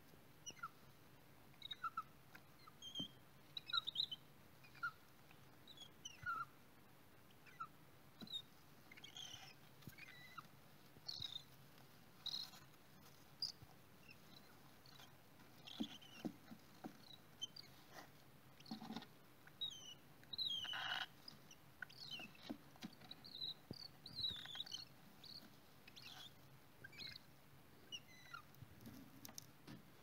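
Cockatiel chicks squeaking and peeping in the nest box: short, high, scattered chirps, with one longer, harsher call about two-thirds of the way through.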